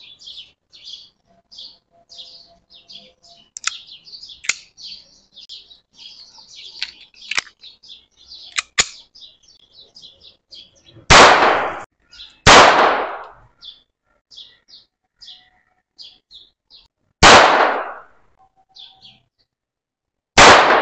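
Star Model FR .22 LR pistol fired four times: two shots about a second apart a little past halfway, then two more spaced a few seconds apart near the end. Birds chirp continuously, and a few light clicks come before the first shot.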